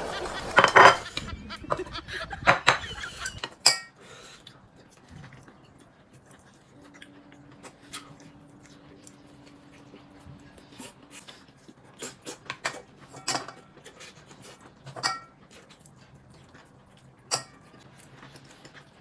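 Chopsticks and spoons clinking against ceramic bowls and plates during a meal: scattered sharp clinks with a short ring, a few seconds apart, the loudest cluster near the middle.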